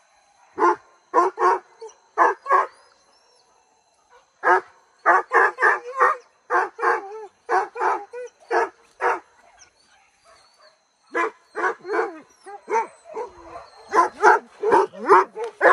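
Hunting dogs barking in rapid bursts of short, loud barks, with brief pauses about three seconds and ten seconds in.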